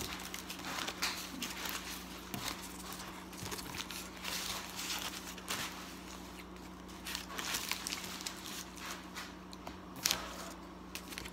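Paper napkin and foil sandwich wrapper crinkling and rustling in irregular spurts as they are handled and folded.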